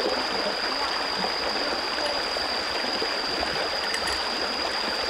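Shallow rocky stream running over stones: a steady rush of flowing water, with a steady high-pitched tone above it.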